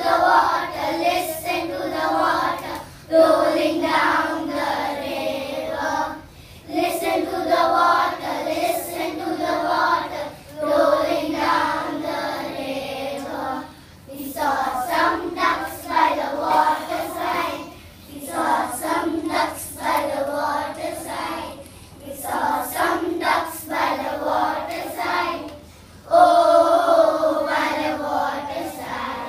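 A group of young children singing together in unison. The lines come in phrases of a few seconds, each followed by a short breath-break.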